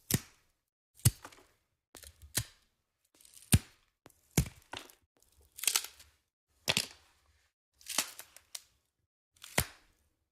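A series of short, sharp cracks and snaps, roughly one a second, some in quick pairs, each dying away quickly into silence.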